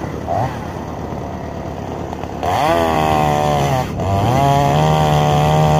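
Chinese-made two-stroke chainsaw idling, then revved up sharply about two and a half seconds in. It dips for a moment near four seconds and runs steady at high revs after that.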